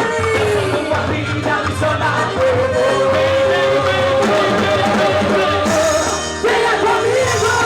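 Loud festa junina quadrilha music with a sung melody over a steady beat, dipping briefly about six seconds in.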